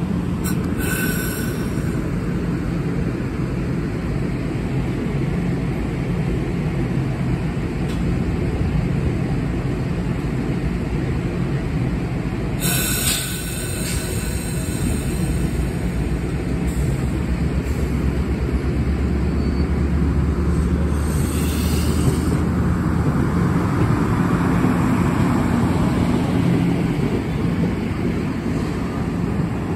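MARC 7700-series stainless-steel passenger coaches rolling past close by, a steady loud rumble of steel wheels on the rails. Two brief hissing rushes come partway through.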